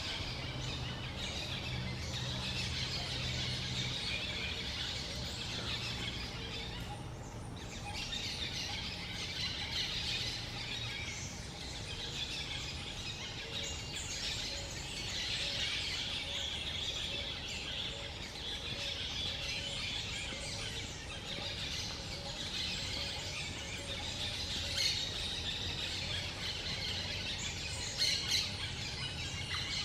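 Yellow-winged parakeets chattering without pause in high, shrill calls. A low hum sits underneath over the first few seconds.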